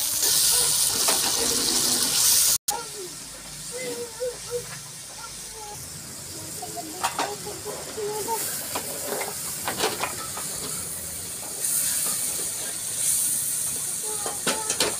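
Onions, chillies and tomato paste sizzling in hot oil in an aluminium pot, cut off suddenly about two and a half seconds in. Then small children's high voices, with a few sharp knocks.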